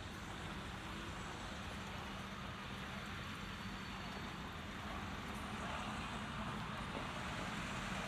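City street traffic: an even wash of road noise with a steady low hum under it, growing a little louder over the last few seconds.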